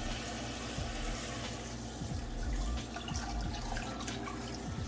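Kitchen tap running into a sink while a fiddle leaf fig plant is rinsed under it, with a few soft knocks of handling.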